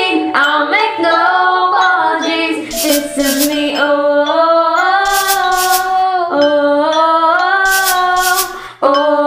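A woman sings long held notes over a backing track, stepping from one pitch to the next, with high hissy beats in the accompaniment. The sound dips briefly just before the end, then a new phrase comes in.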